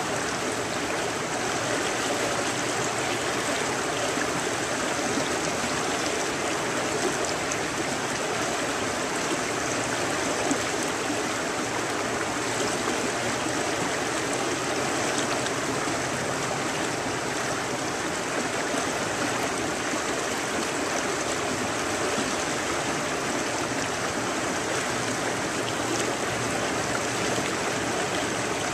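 A shallow, fast river running steadily over a riffle.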